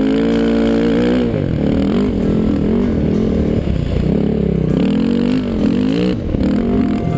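Dirt bike engine held at high revs for about a second, then revving up and down again and again, its pitch dipping and climbing with the throttle.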